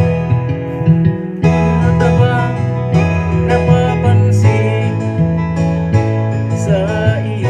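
Acoustic guitar music with strummed chords, with a singing voice coming in at times over it.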